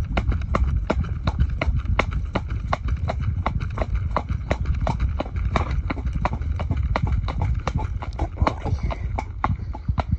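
A horse's hooves clip-clopping on a tarmac lane as it trots, a quick even rhythm of about four to five sharp hoofbeats a second, over a steady low rumble.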